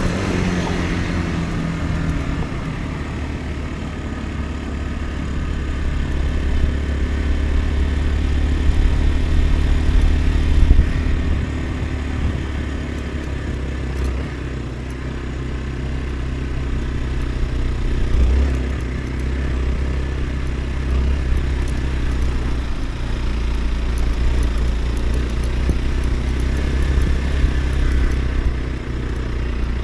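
Motorcycle engine running steadily while riding, a continuous low drone with little change in speed.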